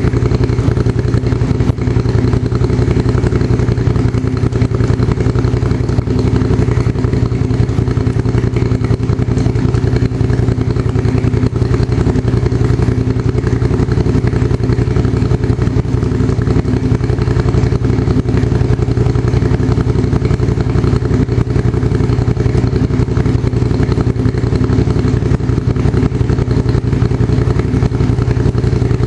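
Motorcycle engine idling steadily in first gear, with the rear wheel and chain spinning freely while the bike is up on stands.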